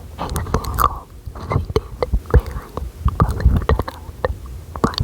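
Close-up, semi-inaudible whispering with many sharp mouth clicks and breathy puffs right on the microphone.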